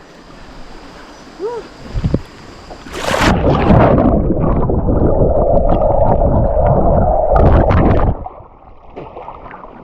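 A splash as the microphone goes under river water, then about five seconds of muffled, gurgling underwater rushing that cuts off suddenly as it comes back out.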